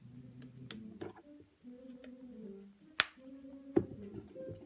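Soft plucked-guitar background music, with a few sharp clicks and taps from a DSLR camera body being handled; the loudest click comes about three seconds in, and another follows just under a second later.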